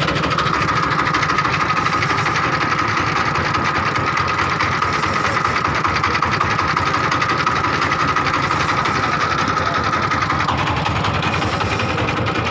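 A fishing boat's engine running steadily as the boat trolls, with a fast, even chugging and a steady high tone above it.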